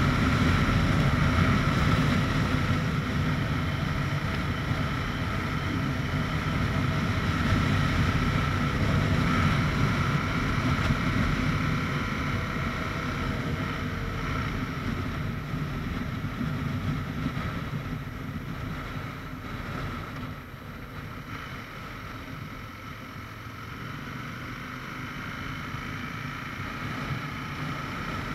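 Aprilia RSV 1000 R's V-twin engine running at road speed, mixed with wind rushing over the microphone. It grows quieter about two-thirds of the way in as the bike slows, then rises slightly near the end.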